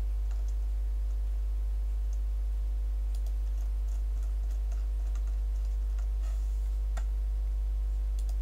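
Scattered computer keyboard taps and mouse clicks, faint and irregular, over a steady low hum.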